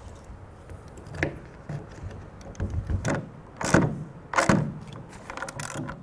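Several separate knocks, then a quick run of lighter clicks and rattles near the end, as a long rawl bolt is fitted through an awning bracket into a wall.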